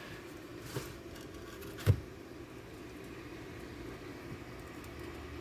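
Two knocks as the old radio set is handled and turned to get at its underside, the second, just before two seconds in, much louder. A steady low hum runs underneath.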